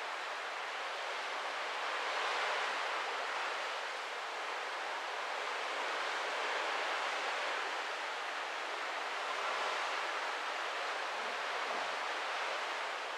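Steady rush of sea water along the hull and wake of a cruise ship under way, with a hiss of wind, swelling and easing slightly every few seconds.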